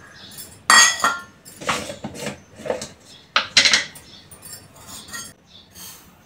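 Metal kitchen utensils and containers clinking and knocking as they are handled and set down, with a string of sharp clinks. The loudest come about a second in, with a short metallic ring, and again about three and a half seconds in.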